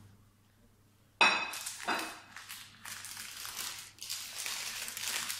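Baking paper crinkling and rustling as it is peeled open from around a rolled cake, starting with a sharp crackle about a second in.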